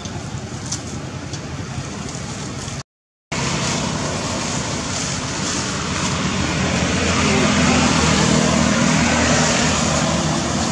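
Steady rushing background noise with a low hum. It cuts to silence for about half a second near three seconds in, then comes back a little louder.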